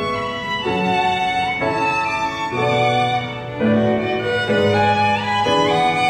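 Two violins playing a slow melody in held notes over grand piano accompaniment, the chords changing about once a second, with a couple of short upward slides between notes.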